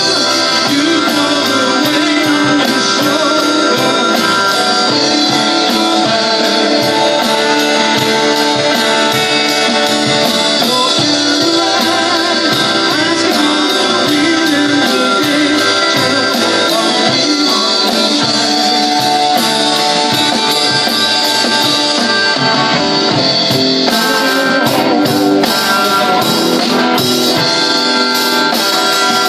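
Live band playing, with electric guitars over a drum kit and a steady beat of cymbal strokes.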